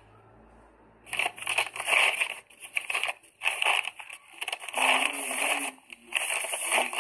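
Paper envelopes and files rustling and crinkling in irregular bursts as a hand rummages through a drawer of them, starting about a second in.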